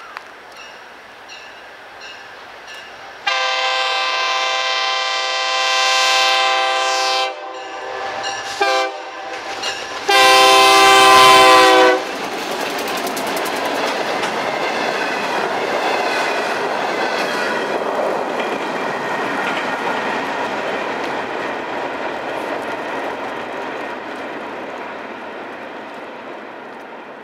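EMD GP35 locomotive's air horn sounds a long blast, then a short one, then a final long blast, the loudest, as the locomotive passes at speed. Then a string of covered hopper cars goes by with a steady clickety-clack of wheels over jointed rail, easing off near the end.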